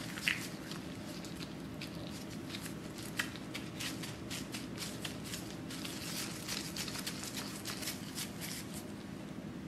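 Thin disposable gloves rustling and crinkling as hands fold and press soft chocolate cookie dough around a piece of chocolate, with many small ticks and two sharper ones, just after the start and about three seconds in. A faint steady low hum runs underneath.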